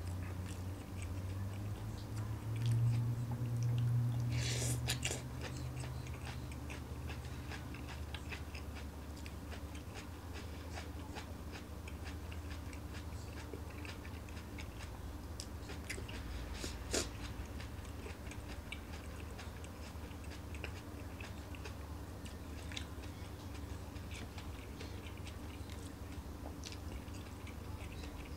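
A person chewing stir-fried vegetables with many small wet mouth clicks, and now and then a tap of wooden chopsticks in a frying pan; one sharper click past the middle.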